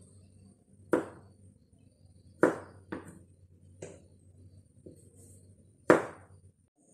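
Large kitchen knife chopping boiled buah kepayang (Pangium edule) kernels on a plastic cutting board. There are five sharp chops at uneven intervals, and the last is the loudest.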